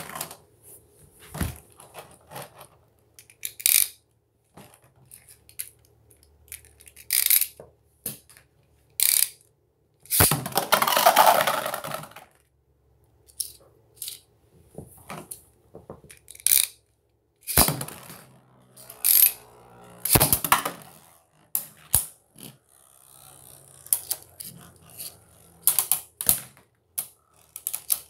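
Battling tops clacking against each other and rattling on the hard plastic stadium floor and walls: irregular sharp clicks and knocks, with a longer, louder clatter about ten seconds in.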